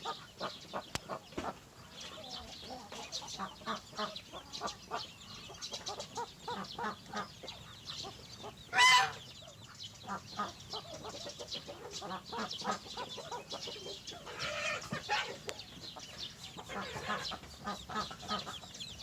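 Backyard chickens clucking, many short clucks throughout, with one loud short squawk about nine seconds in.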